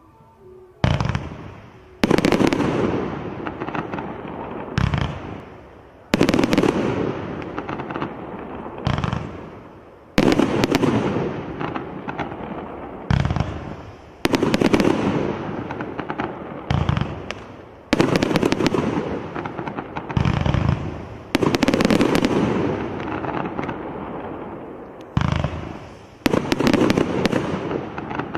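The 'Flashy' multi-shot firework cake by Primed Pyrotechnics firing its barrage. Sharp shots come in pairs about a second apart, roughly every four seconds, and each one trails off into a fading hiss.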